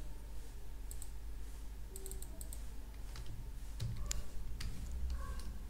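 Computer keyboard keys and mouse buttons clicking: scattered single clicks with a quick run of several keystrokes about two seconds in, over a faint steady low hum.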